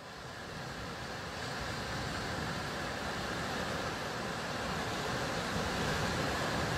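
Sea surf washing onto a sandy beach: a steady, even rush of breaking waves that grows louder over the first two seconds.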